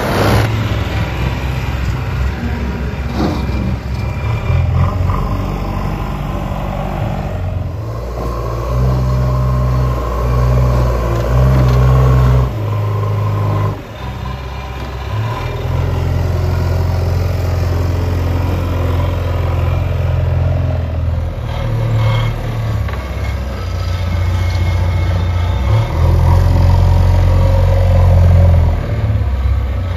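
Heavy diesel engines of a JCB backhoe loader and farm tractors running and revving. The low engine note jumps abruptly in pitch and level several times.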